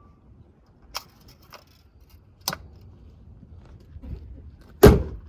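A steady whistle-like tone from the Suzuki Swift Sport ZC33S engine bay cuts off just after the start. Then come two sharp clicks and one loud thump near the end.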